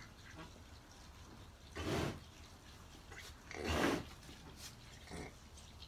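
Cow in labour breathing out hard twice, about two seconds apart, with a fainter breath near the end: heavy, noisy breaths while she strains to deliver her calf.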